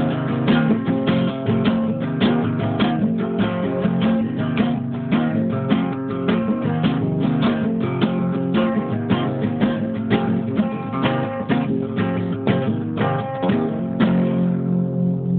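Guitar music: quick plucked notes in a busy, continuous run. Near the end the plucking stops and held, ringing tones remain.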